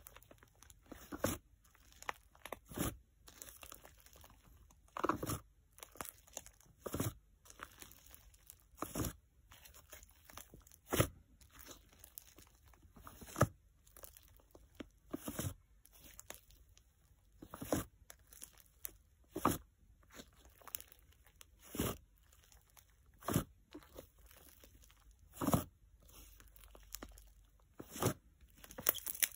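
Thick DIY clay slime being squeezed and folded by hand, giving short clicky pops and squelches, one every second or two at an uneven pace, as air pockets in the slime are pressed out.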